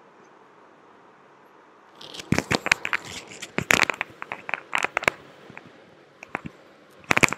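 Irregular sharp crackling and clicking, starting about two seconds in, thinning out, then returning as a denser, louder run of crackling near the end.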